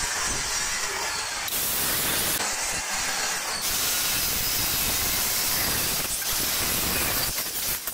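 Handheld Eastman circular saw running and cutting through a plywood sheet: a steady, dense hiss of blade and wood, dipping briefly near the end.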